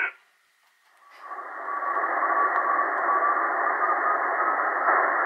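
Tecsun PL-880 shortwave receiver in USB single-sideband mode on the 80 m amateur band, playing band-limited static hiss. The hiss cuts out abruptly, stays silent for about a second, then fades back in with a faint steady whistle.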